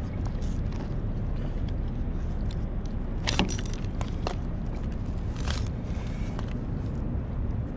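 Steady low wind rumble on the microphone. Over it come a few sharp clicks and knocks from a striped bass being handled on a plastic measuring board: the loudest a little before halfway, another about two-thirds in.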